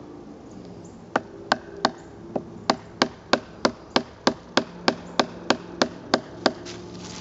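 A wooden baton knocking on a Mora Bushcraft knife held upright in a log, driving its tip into the wood: about seventeen sharp wooden knocks, about three a second, starting about a second in and stopping shortly before the end.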